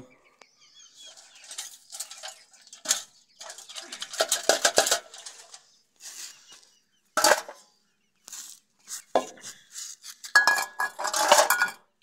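Chicken feed and water dishes being handled, clattering and clinking in several short bursts, the longest near the end.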